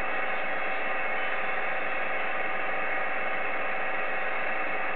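Steady hiss of 10-metre band noise from an Icom IC-7300 transceiver's speaker, with its single-sideband receiver open between transmissions. A few faint steady tones run under the hiss.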